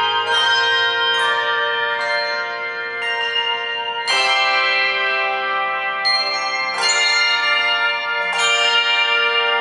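Handbell choir ringing brass handbells in chords: each chord is struck together and left to ring on, overlapping the next, with a strong new chord about four seconds in and further chords after it.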